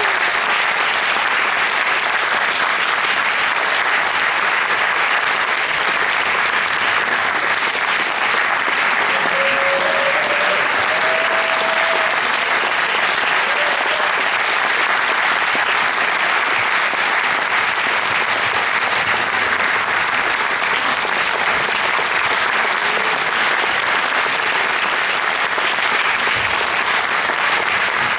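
Audience applauding steadily in a concert hall, a dense even clatter of many hands clapping.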